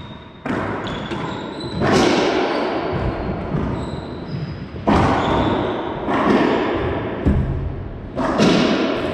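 Racquetball rally: about five sharp smacks of the ball off racquets and the court walls, each ringing with a long echo in the enclosed court.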